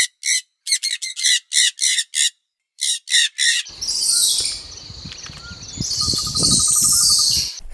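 Birds calling: a quick run of about a dozen short, sharp calls, then, after about three and a half seconds, high chirping over a steady outdoor background.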